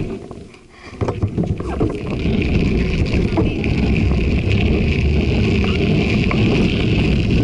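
Wind noise on a handlebar-mounted camera's microphone, with tyre rumble from a bicycle rolling over wet pavement. It dies away briefly in the first second, then comes back with a few knocks and runs on steadily.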